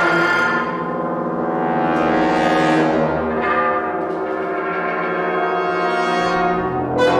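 Brass ensemble playing sustained, overlapping chords that swell and fade, with a new loud chord entering near the end.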